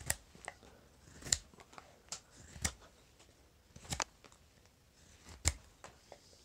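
Carving knife slicing thin shavings from the bowl of a wooden spoon blank, a string of short, crisp cuts at irregular intervals. Each cut takes off a high spot to thin the bowl down.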